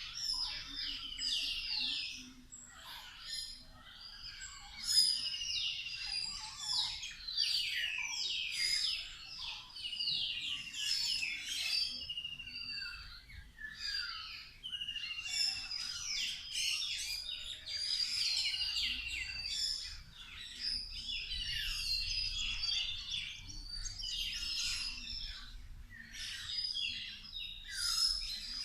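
A flock of birds, mostly parrots, chirping and calling constantly while feeding in a tree, many short overlapping downslurred calls.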